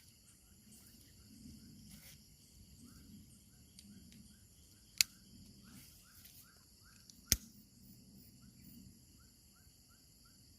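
Steady high-pitched insect chorus, crickets, with a bird calling in runs of short repeated chirps. Two sharp clicks stand out, about five seconds in and again about two seconds later.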